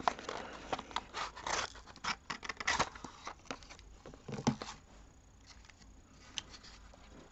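A small cardboard model-car box being opened by hand: flaps and an inner cardboard tray sliding and scraping, with rustles and small clicks, and a duller knock about four and a half seconds in. It goes quieter over the last couple of seconds.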